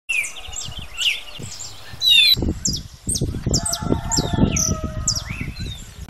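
Birds chirping, a busy run of short, quick, falling high notes. From about two seconds in, a low rumbling noise sits underneath.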